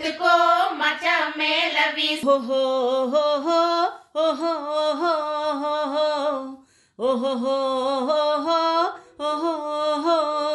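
Women singing a Tamil folk song together, in sung phrases broken by short pauses.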